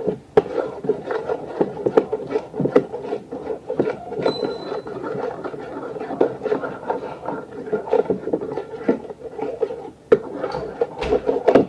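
A spoon stirring and scraping glue-and-borax slime in a container: quick irregular clicks and scrapes over a steady rubbing sound.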